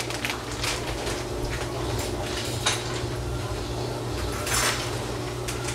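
A cooking utensil knocking and scraping in a pan, with a longer scrape about four and a half seconds in, over a steady low hum.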